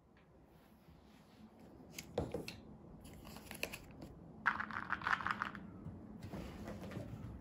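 Soft rustling and crinkling handling noise with a few sharp clicks, about two seconds in and again near three and a half seconds. A louder burst of rustling comes about four and a half seconds in.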